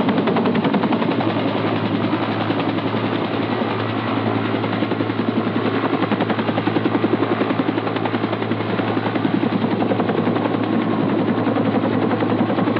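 Loud, continuous, rapid mechanical pulsing dubbed in as a sound effect, with a steady low hum underneath; it starts abruptly and runs without letup.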